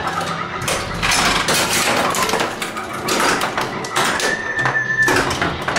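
Data East Tales from the Crypt pinball machine in play: quick clacks and thumps of flippers, solenoids and the steel ball striking targets, over the game's electronic sounds, with a held electronic tone about four seconds in.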